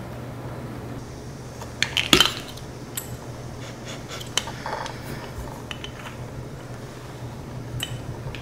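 Clicks and light clinks of a black truffle grinder bottle being handled on a table, with a cluster of sharp knocks about two seconds in and scattered smaller ticks after, over a steady low hum.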